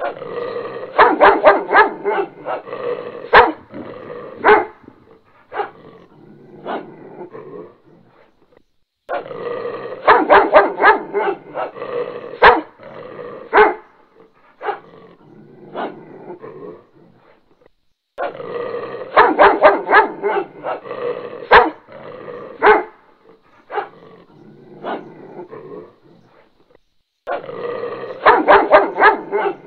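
Dog barking and growling: a quick run of sharp barks, then scattered single barks. The same stretch of about nine seconds repeats over and over, with a brief silence between repeats.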